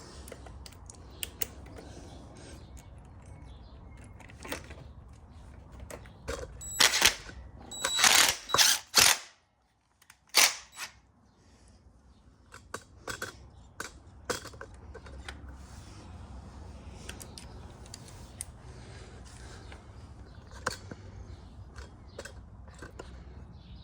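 Scattered clicks and clinks of a quad's radiator and its bolts being handled and fitted back in place, with a cluster of sharp, louder knocks about seven to nine seconds in and another just after ten seconds. A low steady hum runs underneath, and the sound drops out briefly just before ten seconds.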